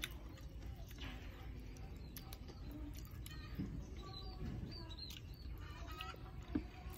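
Birds chirping faintly in the background, a few short chirps about four to five seconds in, over soft clicks and knocks of eating by hand.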